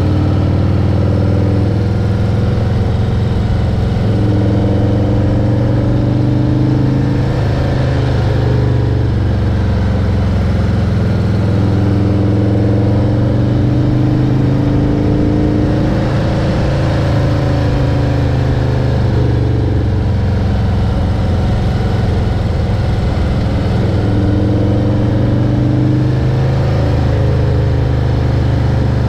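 A vehicle engine running steadily, its pitch drifting up and down again and again.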